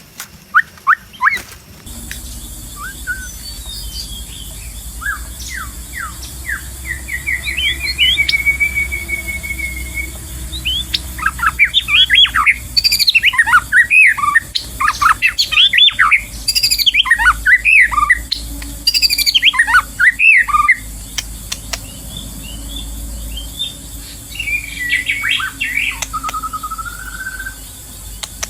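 White-rumped shama singing a varied song of clear sliding whistles and fast chattering phrases, with a rising run of notes into a held whistle, densest and loudest in the middle. A steady low rumble sits underneath from about two seconds in.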